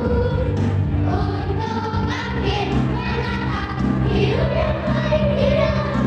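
Church choir of young singers performing a Christian song, voices together over sustained low accompaniment notes.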